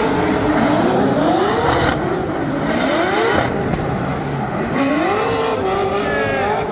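Drift car's engine revving on track, its pitch climbing three times, over a continuous loud rushing noise.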